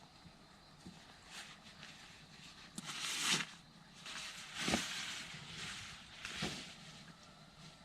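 Camping gear being handled while a bed is set up: several separate rustling swishes with light knocks, the loudest about three seconds and nearly five seconds in.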